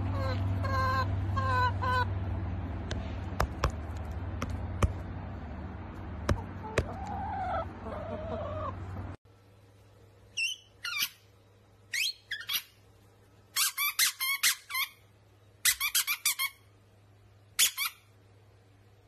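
Brown hens clucking, with several sharp clicks and a wavering call among them, until an abrupt cut about nine seconds in. After the cut, a small squeaky toy ball is squeezed by hand in short runs of high-pitched squeaks.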